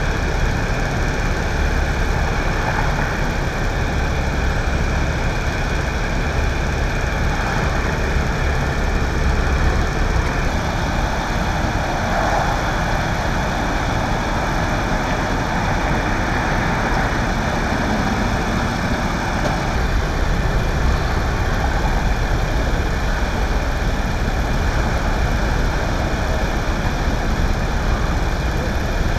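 Heavy diesel engines idling steadily, a constant low rumble with no change.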